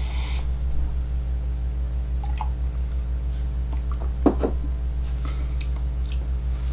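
A short sip from a mug at the start, then a coffee mug set down on a wooden table with a single knock about four seconds in, over a steady low electrical hum.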